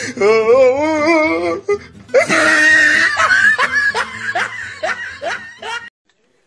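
Loud laughter: a wavering, drawn-out laugh, then a run of quick 'ha-ha' bursts about three a second, cutting off suddenly near the end.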